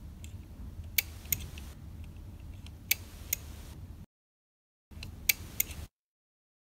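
Relay on a DS1242 relay board clicking on and then off, toggled by a brief connection across its input: three pairs of sharp clicks, the two in each pair about a third of a second apart, over a low hum.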